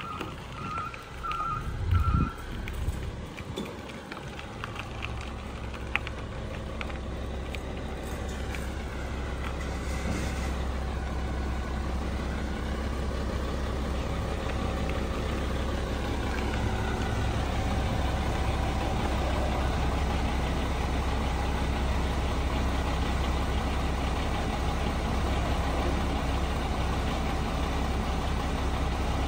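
Mack LE garbage truck's engine running, growing louder as the truck draws closer and then holding steady. A few short beeps end in the first second, and a low thump comes about two seconds in.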